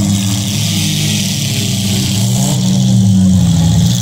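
Demolition derby cars' engines running and revving in the arena, their pitch rising and falling, a little louder in the second half.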